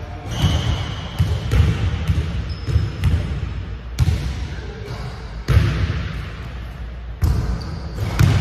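A basketball dribbled and bouncing on a hardwood gym floor: irregular thuds a fraction of a second to a second and a half apart, with a couple of brief high sneaker squeaks in the first few seconds.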